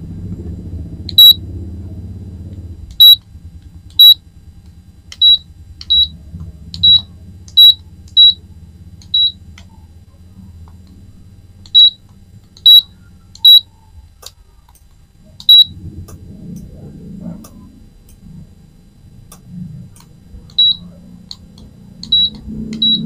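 Short, high, single-tone beeps from a Yongma digital rice cooker's control-panel buzzer, about fifteen of them at uneven intervals as the panel's buttons are pressed.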